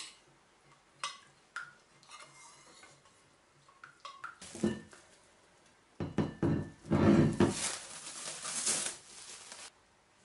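A metal spoon clinking a few times against a stainless steel pan while stirring melted butter and tahini. About six seconds in, several seconds of louder rustling and scraping as the covered steel dough bowl is handled.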